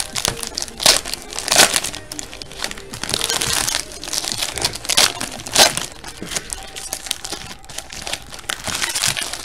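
Foil trading-card pack wrappers crinkling as packs are opened by hand, with a few sharper, louder crackles.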